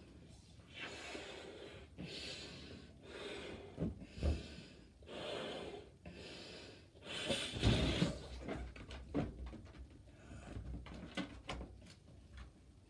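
A person blowing up a big 24-inch balloon by mouth: about six hard breaths blown into it, each about a second long, with quick intakes between. In the last few seconds there are scattered short clicks and squeaks from the balloon being handled.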